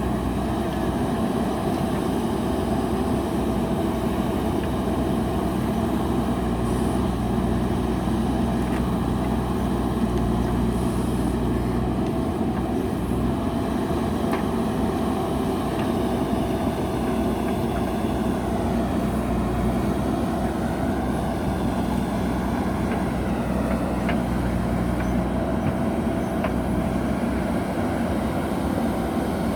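JCB backhoe loader's diesel engine running steadily, its pitch dipping and then rising again a little past the middle.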